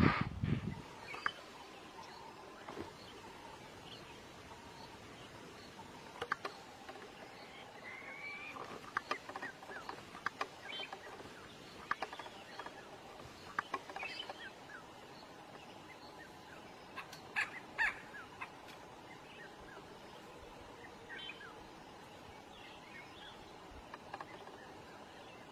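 Wild birds calling in bushland: scattered short chirps and whistles, some rising or falling in pitch, over a faint steady hum. A brief loud low noise opens it in the first half second.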